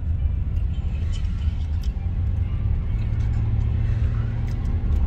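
Low, steady road and engine rumble of a car driving on a wet highway, heard from inside the cabin, with a steadier hum about three seconds in. Scattered faint ticks of rain hitting the windshield.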